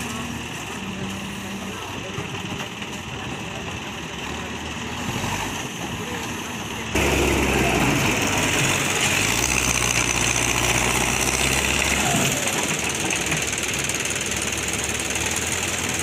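Diesel engine of a Manitou Terex backhoe loader running. About seven seconds in the sound jumps suddenly louder, with a steady low engine hum close by for several seconds.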